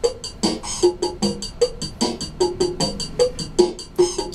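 Casio ToneBank electronic keyboard playing an upbeat instrumental passage: a quick, steady drum-machine beat with a short repeating pattern of keyboard notes over it.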